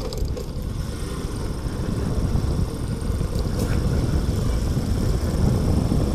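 Motorcycle running at a steady riding speed, heard from the rider's seat as a continuous low rumble of engine and wind.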